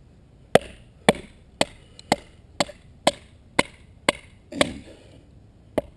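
A baton beating on the spine of a bushcraft knife to split wood: sharp wooden knocks, about two a second, with a short pause before the last one.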